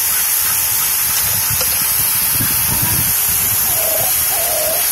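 Pressure washer spraying with a steady, loud hiss. Near the end, a dog lets out three short, wavering whine-like calls at the spray, the sound the owners call it "talking" to the washer.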